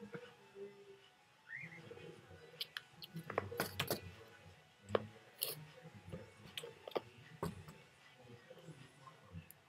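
A cat swiping and batting under a closed door: scattered light taps and scrapes against the door bottom and carpet, with a few soft thumps, busiest in the middle.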